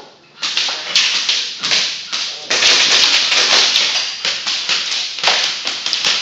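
Rapid airsoft gunfire: many sharp shots in quick succession, continuous after about half a second.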